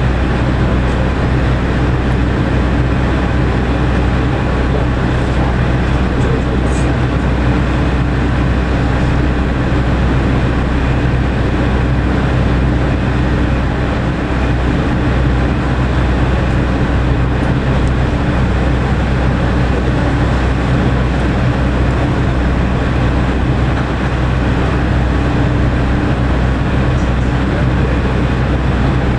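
JNR KiHa 47 diesel railcar's engine idling at a standstill: a steady low hum heard from inside the car.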